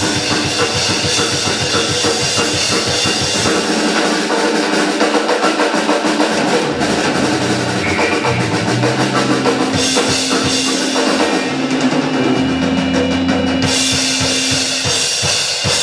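Live band playing an instrumental passage, the drum kit to the fore with rapid bass drum and snare hits under held bass and guitar notes.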